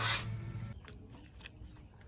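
Electric sander on wood: the sanding noise stops about a quarter second in as the sander comes off the work, the motor's hum dies away about half a second later, then only a few faint ticks.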